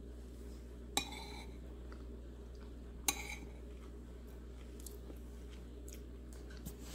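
A metal spoon clinks twice against a ceramic plate, about two seconds apart, each with a short ring, as it cuts into a slice of soft cake; a few faint ticks follow.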